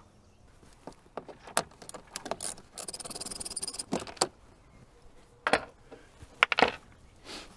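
Metal hand tools being handled: scattered clinks and knocks, with about a second of rapid, even clicking from a ratchet wrench being turned near the middle, and a few louder knocks in the second half.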